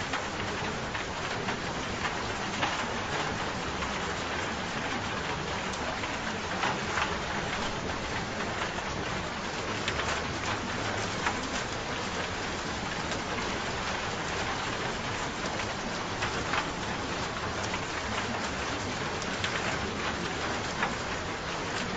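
Steady rain falling on a surface, with individual drops pattering through it.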